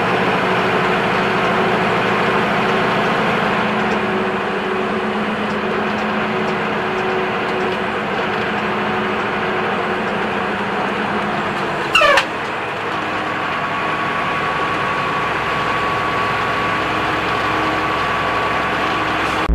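Steady motor-vehicle engine and road noise. About twelve seconds in a short, sharp, loud sound cuts in, and after it a thin steady whine carries on.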